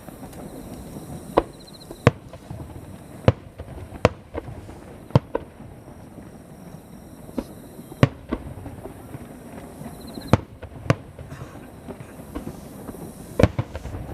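Aerial fireworks shells bursting: about a dozen sharp bangs at irregular intervals, a second or so apart, over steady background noise.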